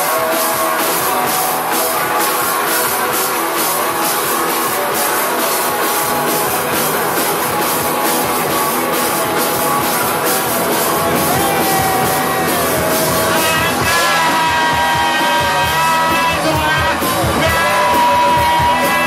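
Live rock band playing loud: drum kit beating steadily under electric guitars, with a voice singing long held notes in the last few seconds.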